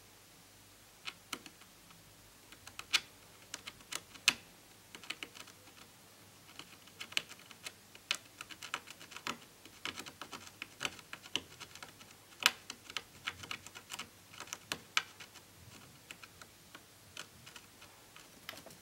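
Irregular small clicks and crackles, sparse at first, thickest in the middle, then thinning out, as a soldering iron tip works fine jumper wires onto the damaged traces of an LCD TV panel's COF strip.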